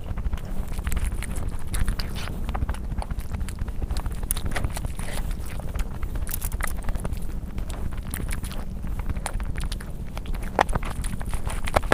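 Close-miked eating: chewing and mouth sounds, with many irregular short clicks and crunches over a steady low rumble.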